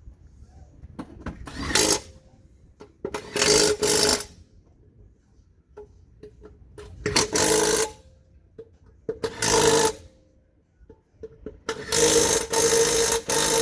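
Power tool, most likely an impact wrench, run in short spells about six times, each lasting from under a second to about a second and a half, with a steady motor whine under a rattling noise.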